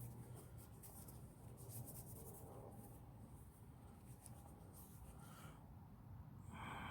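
Near silence with faint rubbing and light handling noises from ratchet parts being picked up and handled.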